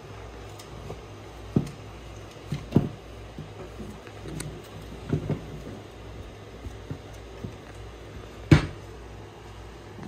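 Scattered knocks and clunks as a Minn Kota Ultrex trolling motor and its mount are shifted and turned around on a workbench, the loudest thump about eight and a half seconds in, over a steady low hum.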